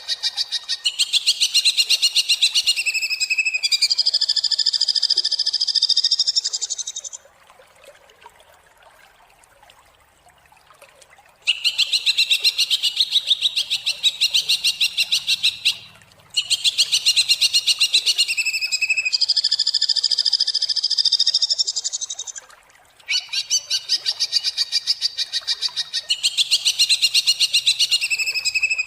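Cucak hijau (green leafbird) singing harsh, rapid-fire bursts of closely packed high notes, in phrases several seconds long. About seven seconds in it pauses for a few seconds, and near the middle and two-thirds of the way through there are short breaks.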